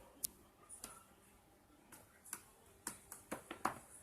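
Light, sharp clicks and knocks of a small hard object batted and knocked about on the floor by a cat, a few scattered at first, then a quick cluster near the end.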